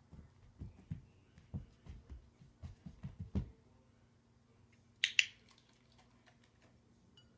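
A series of soft low thumps for the first three and a half seconds, then a dog-training clicker snapping once, a quick double click about five seconds in, marking the dog for standing on the balance pods just before its treat.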